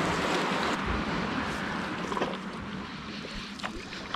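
Sea water washing and sloshing around a canoe's hull and the rock walls as it is paddled, a steady wash that grows quieter, with a few light clicks of paddle splashes or knocks.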